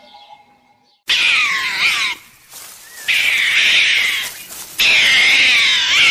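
Cat meowing loudly: three long, drawn-out calls with wavering pitch, starting about a second in, separated by short pauses.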